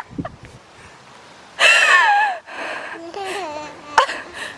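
A baby's high-pitched squeal that falls in pitch, about a second and a half in, followed by softer wavering babbling sounds. A single sharp click comes near the end.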